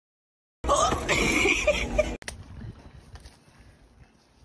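A woman's loud voice for about a second and a half, cut off sharply, followed by faint background noise.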